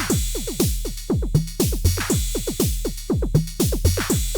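Arturia DrumBrute analog drum machine playing a looped beat: a kick drum and hi-hats under a quick melody of short falling-pitch sweeps, programmed on the FM drum and zap voices. The pattern repeats about every two seconds.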